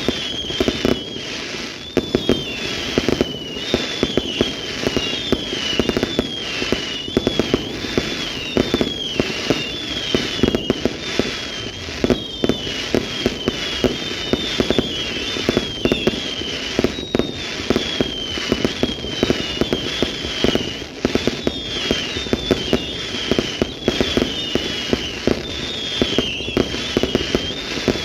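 Fireworks display going off without a break: a dense run of bangs and crackling, with many short high whistles that waver and dip in pitch, several a second.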